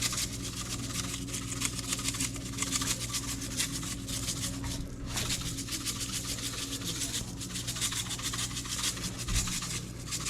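Spice shaker being shaken over fish fillets, the seasoning granules rattling in a rapid, continuous scratchy patter, over a steady low hum.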